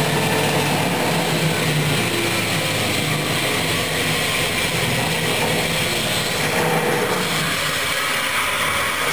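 Table saw running steadily with a 3/4 inch stacked dado blade fitted, a loud, even motor-and-blade hum with no change in pitch.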